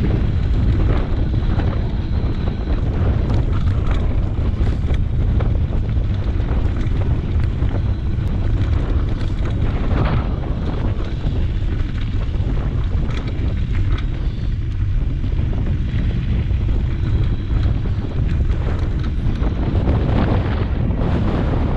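Wind buffeting the microphone of a camera riding a mountain bike fast down a gravel road, a steady loud rumble, with scattered clicks and knocks from the tyres and bike going over loose stones.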